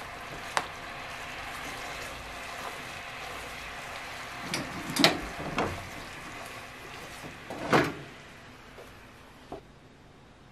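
Silicone spatula stirring a sauce thickened with potato-starch slurry in a nonstick frying pan, over a faint steady bubbling, with several sharp knocks of the spatula against the pan, the loudest about five seconds in and again just before eight seconds. The bubbling fades out near the end.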